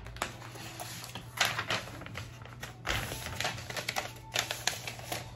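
Paper rustling and crinkling as a white sheet is handled and folded, with irregular sharp crackles, the strongest clusters about a second and a half in, at three seconds and just past four seconds.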